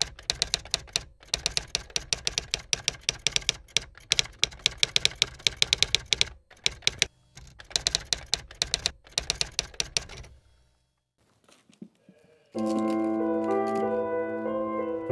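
Typewriter keys clacking in quick, irregular runs of strikes for about ten seconds, then stopping. After a short pause, music with held chords comes in near the end.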